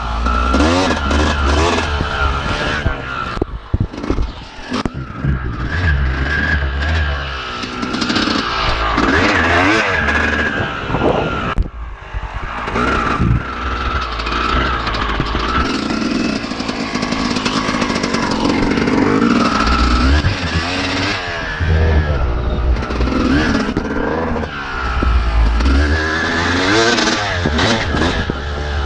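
Dirt bike engine revving up and down again and again. Heavy low rumble and knocks come from the jostled camera microphone.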